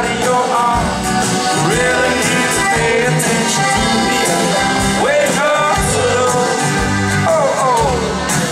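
Live band playing a mellow acoustic pop song: strummed acoustic guitar, drums, bass and accordion, with a male voice singing over them.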